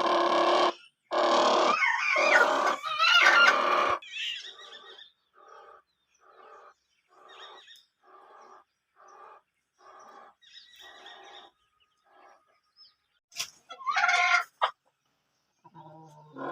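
Domestic chickens: loud squawking calls for the first few seconds, then a steady run of short clucks, about one every three-quarters of a second, and another loud call near the end.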